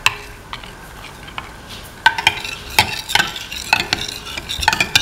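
Metal spoon beating eggs in a bowl, clinking and scraping against the bowl's side. The strokes are sparse at first, then come faster and louder from about two seconds in.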